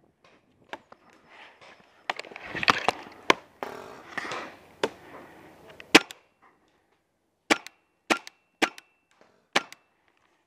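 Paintball gunfire in a magfed game: about ten sharp cracks at uneven spacing, the last four roughly half a second to a second apart. Between about two and five seconds there is scuffling and rustling as the player moves behind the wooden bunker.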